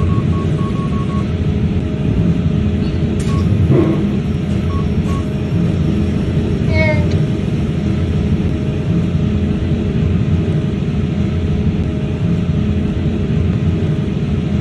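Service elevator car travelling between floors: a steady, loud rumble with a faint hum. A few short faint beeps sound near the start and about five seconds in.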